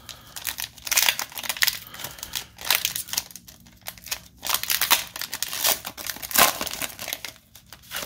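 Foil wrapper of a Panini Chronicles football card pack crinkling and tearing as it is pulled open by hand, in a series of short irregular rustles, the loudest about six and a half seconds in.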